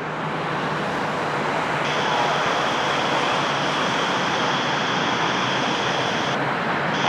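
Jet airliner on final approach to land: the engines make a steady, loud rushing noise that swells slightly over the first two seconds, then holds.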